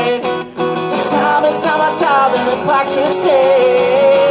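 Live solo performance: a man singing while strumming an acoustic guitar, holding one long note near the end.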